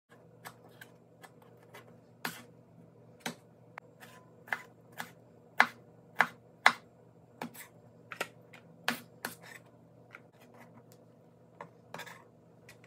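Chef's knife chopping a tomato on a plastic cutting board: irregular sharp taps of the blade striking the board, about one or two a second, over a faint steady hum.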